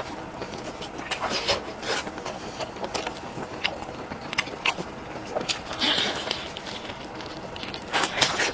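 Close-up eating sounds of chicken being bitten and chewed: irregular sharp crunches and clicks, with a denser run of crunching near the end.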